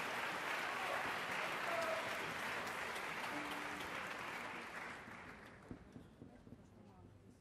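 Theatre audience applauding, the applause dying away over the last few seconds to a few scattered claps.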